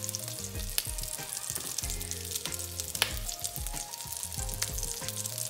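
Plant-based meatballs frying in hot vegetable oil in a pot: a steady crackling sizzle with many small pops, and one sharp click about three seconds in.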